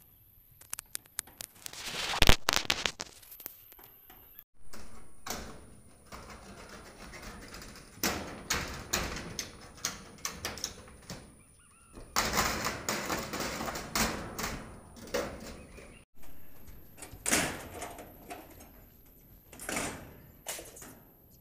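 Corrugated metal roofing sheets being handled: repeated knocks and bangs with scraping and rattling as the thin sheets are lifted, slid and laid in place.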